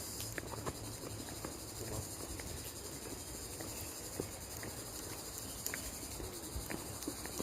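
Insects chirring steadily in a high, even drone, with scattered small clicks and taps.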